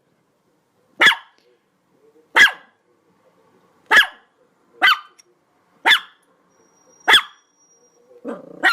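A dog barking in single sharp barks, about once a second, seven in all, with a lower, rougher sound just before the end.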